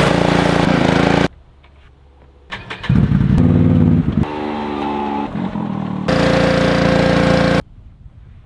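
Pressure washer running and spraying water, cut off abruptly. Then a Can-Am Renegade 1000 ATV's V-twin engine starts and revs, settling to a steady idle. Near the end, another loud stretch of spray and motor noise.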